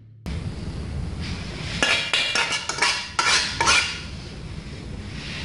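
Metal spoon scraping and clinking against a glass bowl as strawberry topping is scooped out onto a cake: a quick run of clinks and scrapes in the middle.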